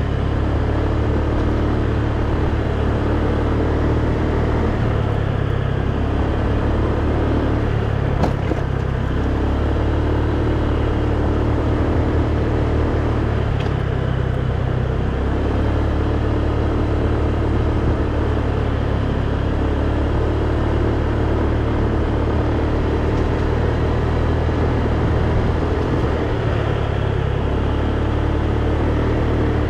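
Motorcycle engine running steadily at road speed, its note swelling and easing every few seconds, with wind and road rumble on the microphone.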